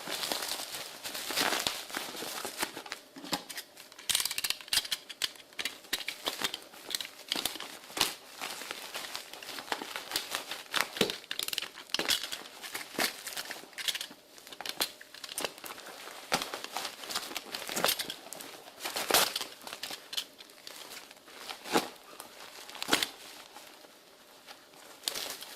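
Packaging being unwrapped by hand: irregular crinkling, rustling and tearing with many sharp crackles.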